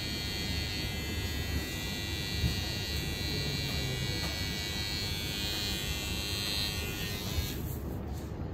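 Electric hair clipper running with a steady buzz against hair, switching off near the end.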